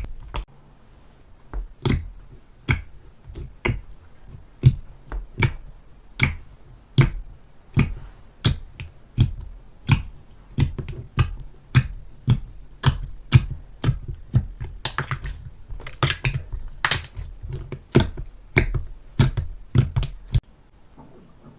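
Slime being worked by hand, giving a long series of sharp clicking pops, a bit under two a second, that stop near the end.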